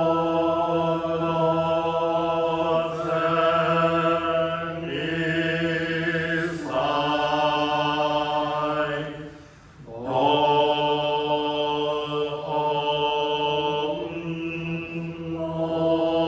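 Buddhist liturgical chanting in a Jodo Shinshu service: voices sing long-held syllables on slowly gliding notes, and break off once for a breath a little past the middle before going on.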